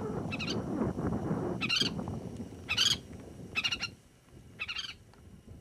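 A bird calling over and over, a short high warbling call about once a second. Under it is a low rush of wind on the microphone that dies away about four seconds in.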